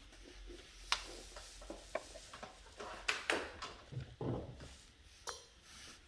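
Monitor power cord being handled and plugged into the power socket on the back of an HP E243p monitor: a string of light clicks and knocks, the sharpest about one and three seconds in, with a duller thump around four seconds in.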